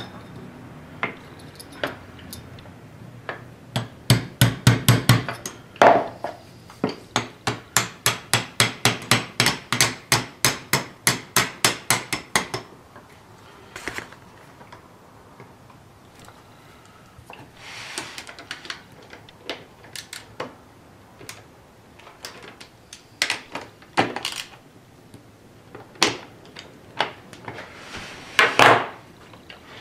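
Light metal-on-metal hammer taps driving the lathe's ball-crank handle onto the keyed feed screw: a quick run of about two to three taps a second for several seconds. Then a few scattered knocks and scraping sounds as the parts are handled.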